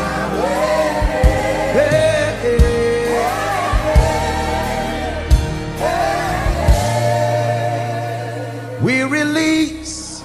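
Gospel worship song: a singer's long, sliding sung lines over the band with a steady drum beat, easing off near the end.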